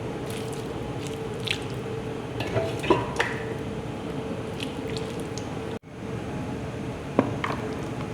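Kitchen food-preparation sounds: scattered light clinks and taps of utensils and dishes over a steady hum, with a brief drop-out a little under six seconds in.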